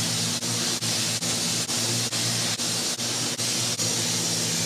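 Air-powered paint spray gun blowing hot soapy water through itself as it is flushed clean after priming: a steady hard hiss of air and spray, broken by brief dips about two or three times a second.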